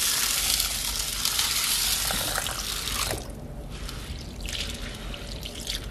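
Water pours in a steady stream onto urad dal, chana dal and raw rice in a bowl and stops about three seconds in. Then comes quieter swishing as a hand rubs the grains in the water to wash them.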